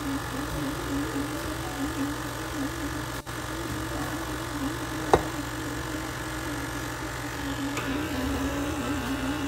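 Electric stand mixer running with its dough hook in the bowl, kneading a stiff enriched dough as eggs are added: a steady motor hum that wavers rhythmically about twice a second. A single sharp click sounds about five seconds in.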